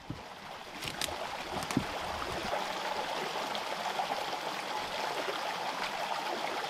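A small stream running and trickling steadily. It builds up over the first couple of seconds, with two faint clicks about a second in.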